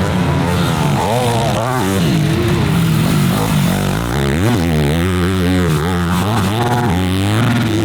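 Dirt bike engine being ridden hard, its pitch repeatedly rising and falling as it revs up and backs off.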